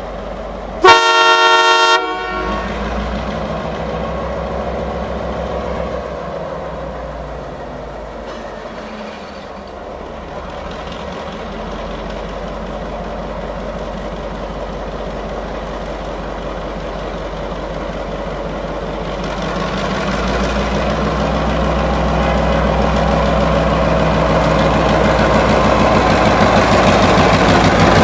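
Diesel locomotive sounds one short horn blast about a second in, then its engine runs steadily as it approaches at low speed, growing louder over the last several seconds as it draws close and passes.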